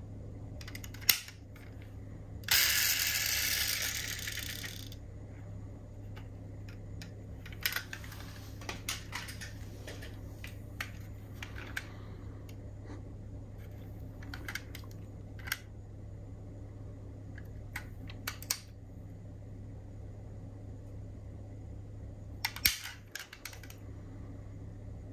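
Small clicks and taps of metal diecast model cars being handled, over a steady low hum, with a hissing rush of noise about two and a half seconds in that fades over a couple of seconds.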